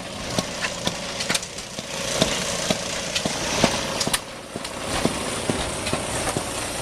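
An engine running, with sharp irregular knocks and clicks over a steady mechanical noise.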